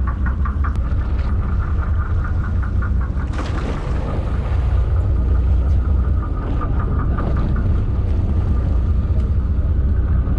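Steady low engine rumble, with a fast, even pulsing hum riding above it and a brief rush of noise about three and a half seconds in.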